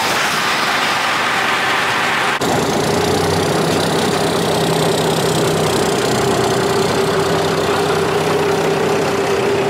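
Engine of a classic square-body Dodge pickup idling steadily just after being started. About two and a half seconds in the sound changes abruptly to the idle heard from outside, near the exhaust, with a steady hum running through it.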